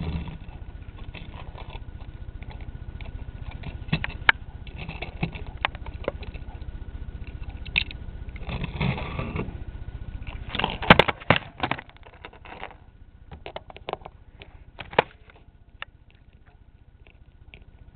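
Plastic Lego minifigures and pieces being handled on a baseplate: scattered small clicks and taps, with a cluster of louder clicks just before the middle, over a low rumble that stops about two-thirds of the way through.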